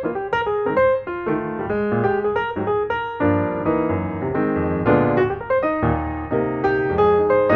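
Piano background music, a run of quick notes, with lower bass notes joining about three seconds in.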